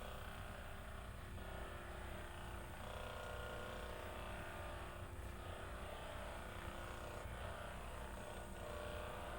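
Electric vibration massager running steadily, a continuous motor buzz and hum whose tone shifts slightly every few seconds.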